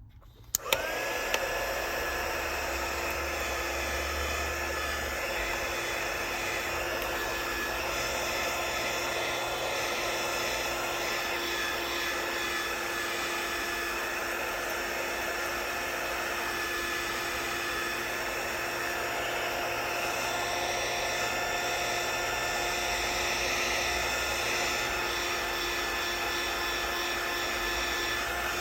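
Heat gun switching on about half a second in, then running steadily: rushing air with a steady whine, heating the phone's back glass to soften its adhesive.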